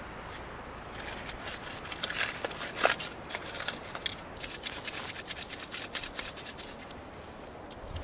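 Dry birch bark being handled and torn: crisp crackling and rustling in quick irregular bursts that grow busier after the middle and stop shortly before the end.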